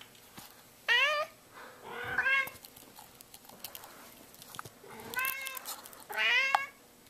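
Orange tabby cat meowing four times, the calls rising in pitch, begging for food.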